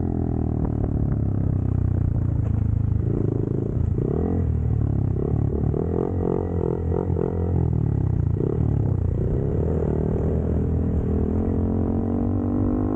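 Motorcycle engine running under way, its drone rising and falling in pitch with throttle and gear changes.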